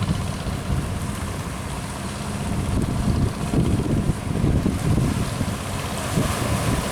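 Strong wind buffeting the microphone in uneven gusts, over a low steady drone.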